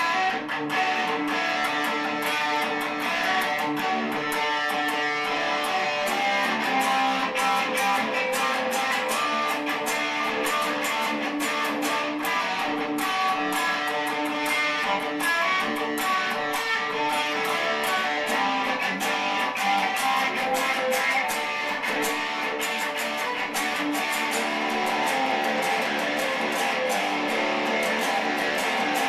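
A guitar played live, a song strummed and picked in a steady run of chords and notes that starts abruptly and carries on without a break.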